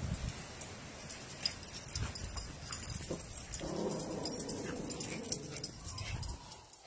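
A dog whining for about two seconds, starting a little past the middle, with scattered light ticks and a few low thumps around it.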